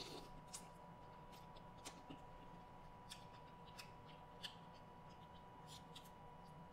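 Quiet eating sounds: faint, scattered clicks of black mussel shells being handled and pulled apart by hand, with soft mouth sounds as the mussels are eaten.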